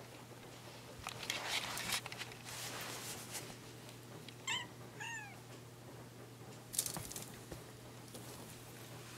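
Young ginger-and-white cat giving two short, high meows about half a second apart, asking to be let outside. Around them come louder bursts of rustling and rattling as the cat pushes and paws at a bamboo blind.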